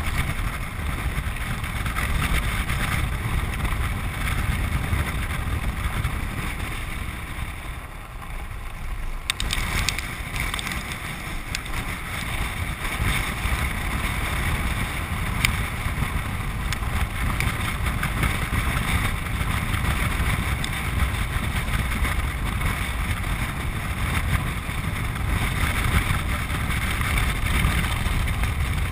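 Land yacht rolling at speed across a hard dry lake bed: steady rumble of the wheels on the lakebed with wind buffeting the microphone. The noise eases briefly about eight seconds in, then a few sharp clicks follow, with another click a few seconds later.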